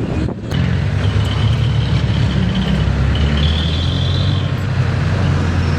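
Jeepney running under way, its engine giving a steady low drone, with a thin high-pitched whine over it that steps up in pitch a little after three seconds and fades out before the end.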